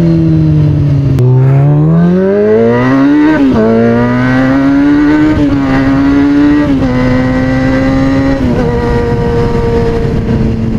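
2003 Kawasaki ZX-6R's 636 cc inline-four engine running through an aftermarket MotoGP-style exhaust while the bike is ridden. The revs sag, then climb steadily for about two seconds, drop sharply at a gear change, and build again. The note steps down twice more and settles into a steady cruise.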